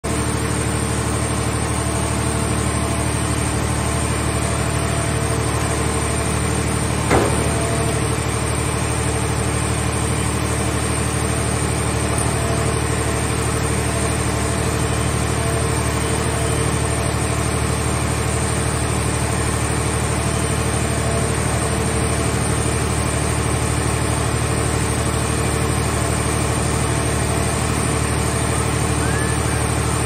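Hydraulic machinery of a car shell baler and its grapple loader running with a steady hum, with one sharp metal knock about seven seconds in as the car body is handled.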